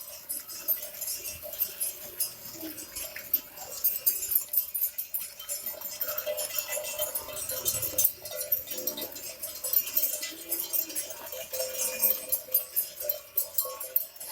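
Bells worn by a herd of cattle clinking and jangling continuously, many quick metallic clinks over a steady ringing tone.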